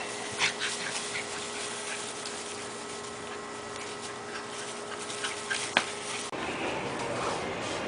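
A dog whimpering with short, sharp yips over a steady background hum. The audio cuts abruptly about six seconds in.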